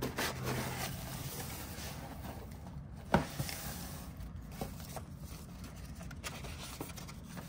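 Cardboard mailer box being opened and its contents handled: soft rustling of the flaps and paper with small taps, and one sharp knock about three seconds in.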